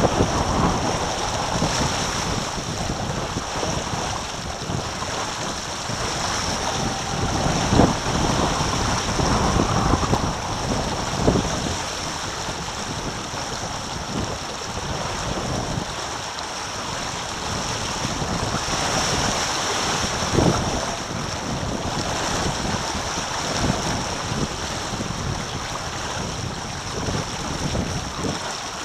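Wind buffeting the microphone and water rushing past the hulls of a Taipan catamaran sailing at about nine knots. A few short thumps stand out as waves slap the hull, about eight, eleven and twenty seconds in.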